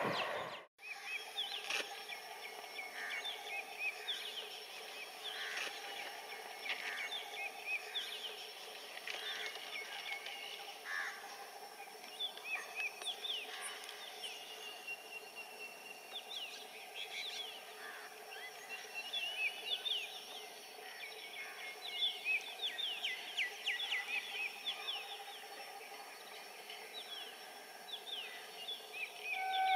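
Songbirds chirping by a railway line, many short falling chirps coming in busy runs. Just before, the noise of a passing train cuts off abruptly under a second in.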